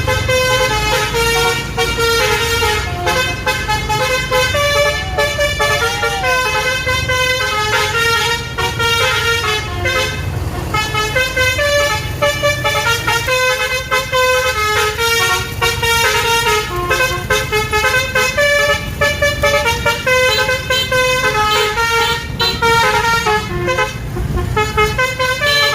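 A bus's 'basuri' telolet musical horn playing a quick tune of short notes that step up and down in pitch, over a steady low rumble.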